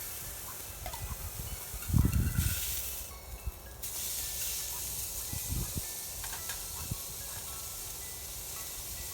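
Meat sizzling as it cooks over the heat, a steady hiss that drops out briefly about three seconds in. A loud low thump about two seconds in.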